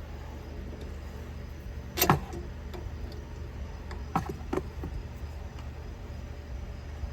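One sharp knock about two seconds in, then two lighter clicks about two seconds later, from parts and tools being handled while a carburettor and intake adapter are fitted, over a steady low hum.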